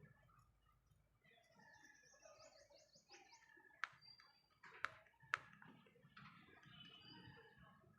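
Budgerigars chattering softly, with a fast high trill about two seconds in and three sharp clicks near the middle.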